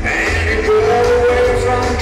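Rock and roll song played loud through a party sound system, with a steady bass beat and a sung note held for about a second.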